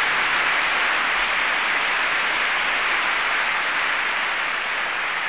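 Audience applauding steadily at the end of a live song recording.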